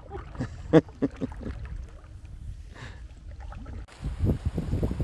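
Canoe paddling on a lake: a paddle dipping and splashing in the water, water sloshing against the plastic hull, and a sharp knock about a second in. About four seconds in, wind on the microphone grows louder.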